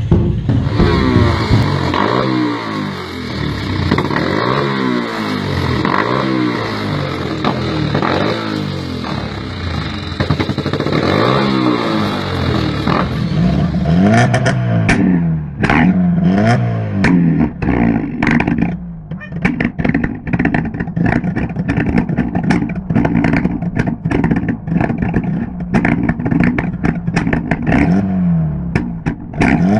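Petrol engine revved up and down repeatedly. About halfway through, a rapid, irregular string of sharp pops and bangs joins the engine note, typical of an ignition-cut rev limiter making the exhaust pop and throw flames.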